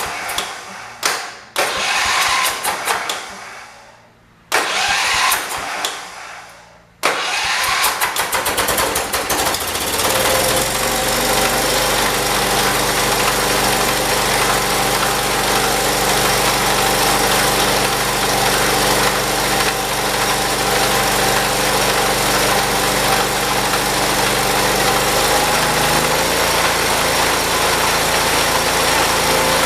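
Single-cylinder Kohler engine of a 1978 John Deere 208 garden tractor being started after a head gasket replacement: it fires in short bursts that die away a few times, then catches about seven seconds in and settles into steady running.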